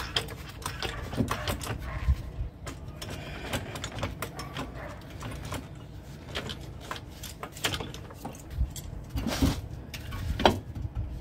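Irregular metal clicks and knocks as a new front strut on a 2001 Ford Windstar is worked down into the steering knuckle and jacked into place, with two louder knocks near the end.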